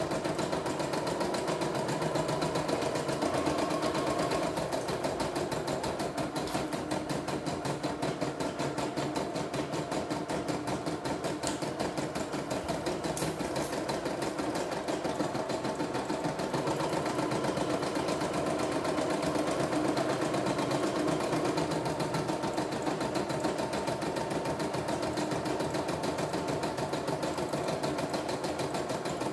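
CNY E960 computerized embroidery machine running, stitching out a design with a fast, steady needle rhythm.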